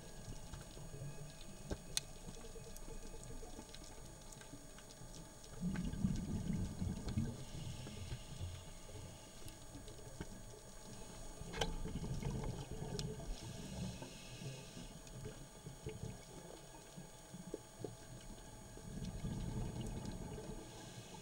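Scuba regulator breathing underwater: a soft hiss on each inhale, then a burst of bubbling exhaust, repeating about every six or seven seconds. A few sharp isolated clicks sound in between.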